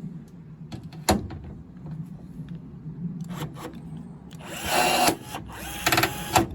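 Electric drill running in two short bursts, drilling rivet holes in the Land Rover's aluminium body panel. A sharp knock comes about a second in.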